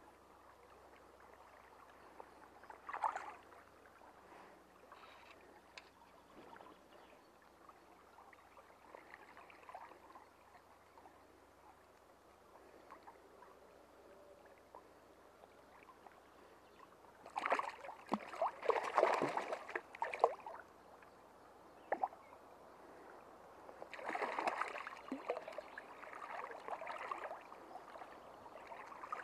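Bursts of water splashing as a hooked trout is brought to hand and handled at the surface: a short splash about three seconds in, then two longer spells of about three seconds each, near the middle and toward the end. Faint steady stream flow fills the gaps between them.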